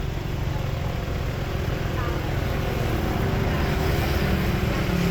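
Steady rumble of a moving vehicle's engine and road noise, with faint voices now and then.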